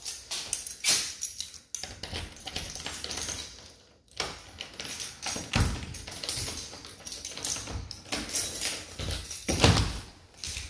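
Wind buffeting the microphone and rustling the garden shrubs, gusting deepest about halfway through and again near the end, with a few knocks from the uPVC French door being opened.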